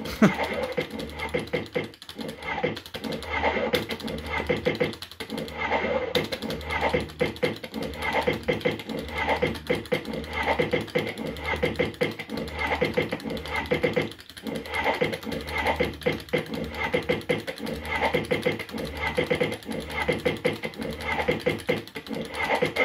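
JPM Red Hot 6 fruit machine playing game after game: reels spinning and stopping with clunks and electronic sound effects in a steady repeating rhythm, with a few short pauses between spins.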